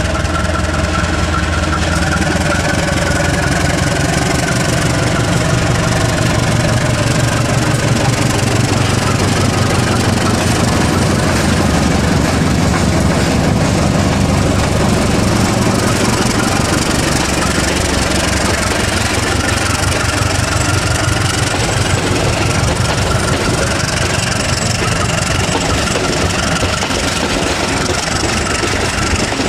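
Diesel-electric locomotive hauling a passenger train past at low speed, its engine running under power, loudest as the locomotive goes by about halfway through. The coaches then roll past.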